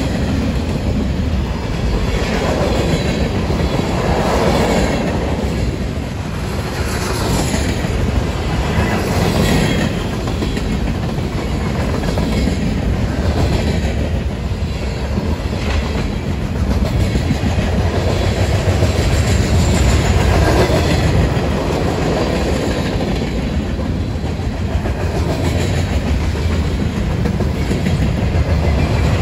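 Freight cars of a long mixed train (boxcars, covered hoppers, gondolas) rolling past: a steady rumble of steel wheels on rail, with repeated clicking as the wheels cross rail joints.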